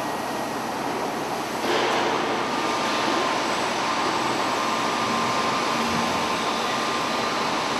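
Steady running noise of a concrete block plant's automated handling line, its chain conveyors carrying pallets of blocks, with a faint steady whine above it. The noise steps up louder about two seconds in.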